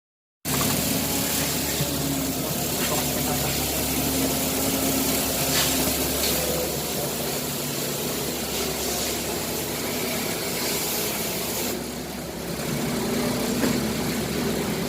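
Steady hum of industrial machinery running, which starts abruptly about half a second in, with a few faint clicks.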